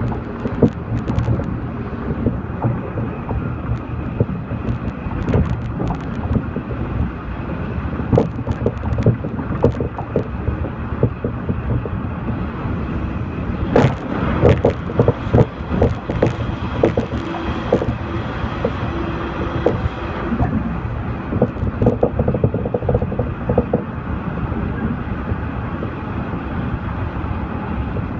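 A local train running along the track, heard from inside the carriage: a steady rumble of wheels and running gear with irregular clicks and rattles, thickest around the middle.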